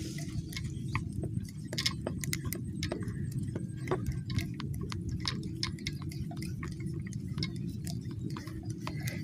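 Scattered, irregular light clicks and ticks over a steady low rumble, from fishing gear being handled close to the microphone.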